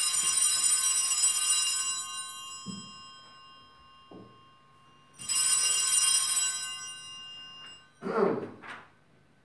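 Sanctus bells, a cluster of small altar bells, rung twice: a bright jangle of many high tones at the start and again about five seconds later, each fading over about two seconds. They mark the elevation of the chalice at the consecration.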